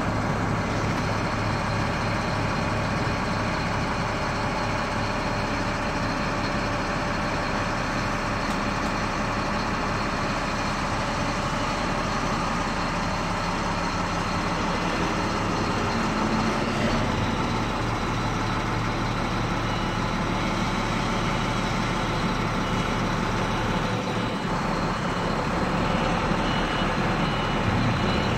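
Log loader's diesel engine running steadily while the hydraulic boom lifts the log grapple, its note shifting about halfway through and rising slightly near the end. A faint intermittent beeping comes in near the end.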